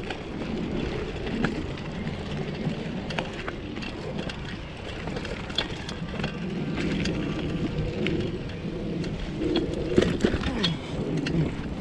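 Bicycle being ridden on a dirt trail: steady rolling noise from the tyres, with scattered short clicks and rattles from the bike as it goes over bumps.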